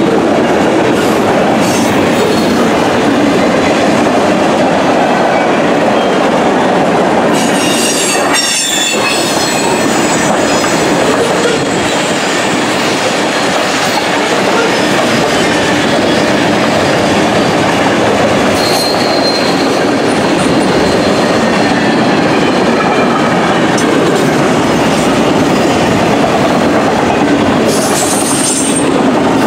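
Freight cars of a manifest train rolling past, a loud steady rumble and clatter of steel wheels on the rails. Brief high-pitched wheel squeals come about eight seconds in, once more faintly in the middle, and again near the end.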